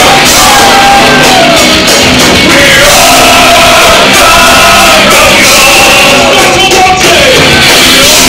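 Live rock band playing loud, with a shouted, sung vocal over the band.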